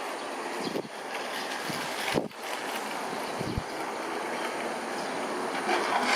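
Strong wind gusting on the microphone, with a few brief low buffets over a steady rushing noise.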